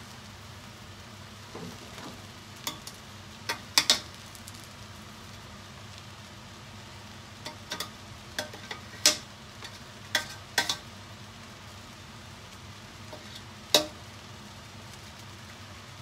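Bihon noodles being stirred and tossed in a stainless steel pot, the cooking utensil clacking against the pot now and then with sharp, irregular knocks over a steady frying sizzle.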